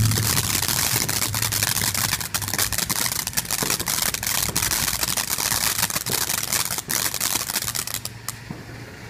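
Ground fountain firework spraying sparks: a loud, dense hissing crackle with scattered pops, which stops abruptly near the end.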